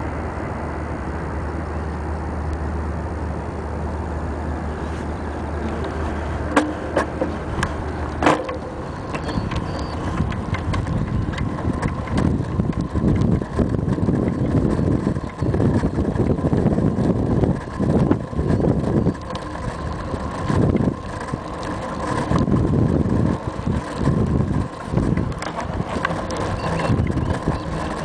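Wind buffeting and road rumble on a bicycle-mounted camera while riding, with a few sharp clicks between about six and eight seconds in. After that the wind noise comes in uneven gusts.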